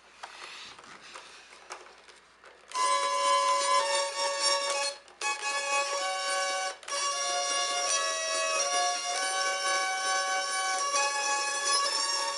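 UGears wooden hurdy-gurdy kit being played: after a couple of seconds of faint handling noise and clicks, a steady buzzing drone sets in about three seconds in, with a melody string stepping between random notes above it. Both strings are tuned to D. The sound cuts out briefly twice.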